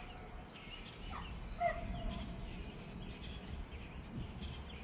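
Two short, sharp yelping animal calls, about a second in and again half a second later, over small birds chirping and a low steady rumble.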